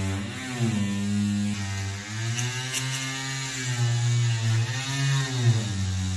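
Handheld corded power tool running against an old bus window's frame and seal. Its motor pitch sags and recovers several times as it is pressed into the work, and there are a couple of short sharp clicks a little before the middle.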